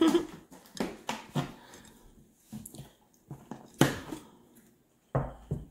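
A few short clinks and clicks of a fork against a glass plate, spaced out with quiet between. The loudest comes nearly four seconds in, and a duller knock comes near the end.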